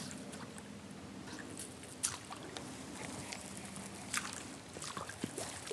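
Water running out of corrugated steel culverts into a river, a steady wash, with a low hum that fades about two-thirds of the way through and a few short, sharp sounds scattered through it.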